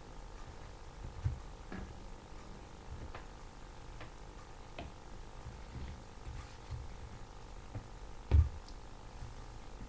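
Trading cards handled over a table: faint rustling and small clicks, a soft thump early on, and a louder low thump near the end as a hand brings a stack of cards down onto the table.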